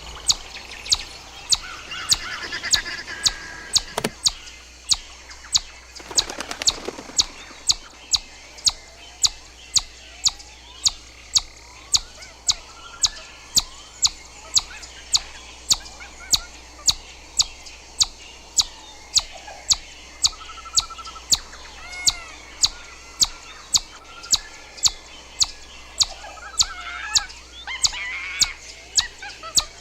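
Chipmunk calling a long, steady series of short, sharp, high-pitched chips, about two a second, with birds singing faintly behind.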